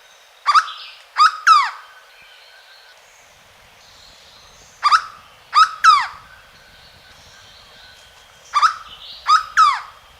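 Hooded berryeater (corocoxó) singing: three loud phrases about four seconds apart, each of three quick notes, mostly slurred sharply downward in pitch. Faint steady high tones run in the background.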